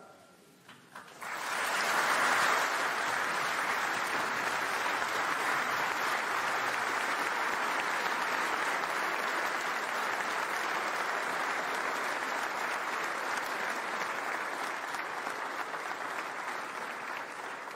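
A large audience applauding. The applause starts about a second in, swells quickly, holds steady, and thins slightly near the end.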